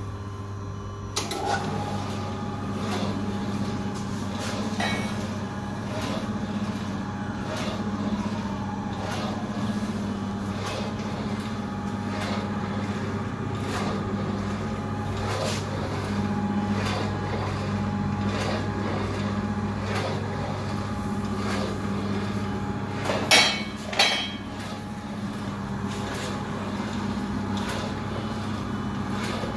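Automatic 30 cm electric slicer running: a steady motor hum, with a sharp click about every second and a half as the automatic carriage strokes past the blade. Two louder knocks come near the end.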